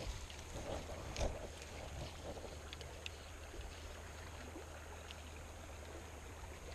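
Shallow creek water running steadily, with a constant low rumble underneath and a light knock about a second in.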